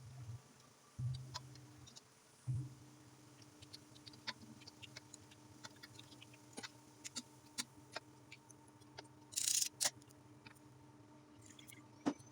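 Scattered light clicks and taps of kitchen work over a steady low hum, with a short hiss about nine and a half seconds in and a sharper knock near the end.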